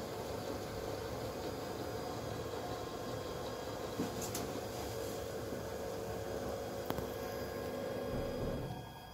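LG Direct Drive front-loading washer dryer running, with water moving and gurgling inside it over a steady hum. The hum cuts off shortly before the end, leaving it quieter.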